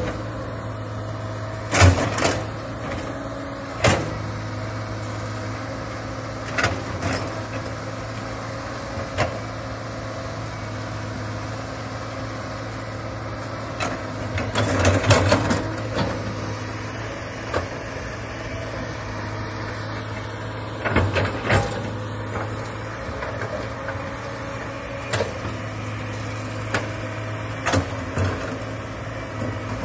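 Komatsu hydraulic excavator's diesel engine running steadily with a low drone, broken every few seconds by sharp knocks and short bursts of clanking as the arm and bucket work the soil, the busiest stretch about halfway through.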